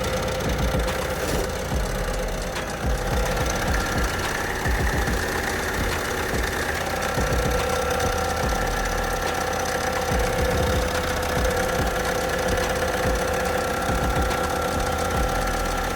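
Citroën Berlingo 1.6 HDi (DV6) four-cylinder diesel engine running steadily at idle with a steady whine over the diesel rumble, its exhaust freshly fitted with a new front flexi pipe and no longer blowing.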